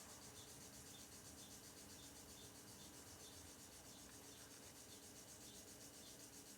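Near silence: a faint steady background hiss with a faint, evenly repeating high chirp.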